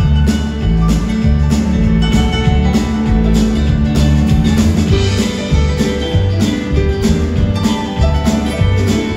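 Live band playing an instrumental passage with a steady beat: acoustic guitar, a Nord Stage keyboard and upright bass in a bluegrass-rock style.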